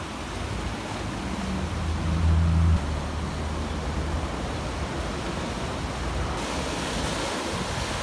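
Sea waves surging and washing over rocks, with wind rumbling on the microphone that swells about two seconds in. The hiss of the surf grows brighter near the end.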